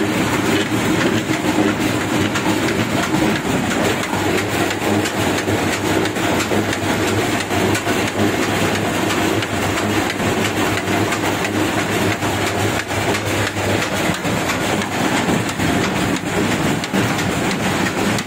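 Sardar Engineering 32-patti screw oil expeller running steadily, a continuous rattling clatter over a constant low mechanical hum as it presses oil from seed.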